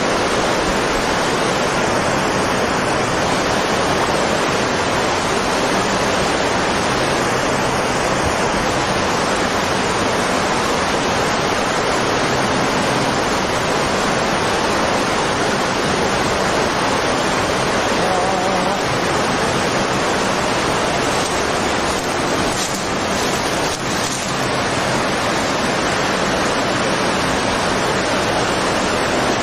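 Tsunami floodwater rushing inland, carrying masses of wooden debris: a steady, loud rush of water.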